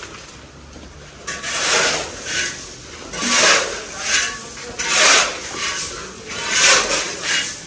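Rasping scrapes on a hard, gritty surface, roughly one stroke a second, some longer and some shorter.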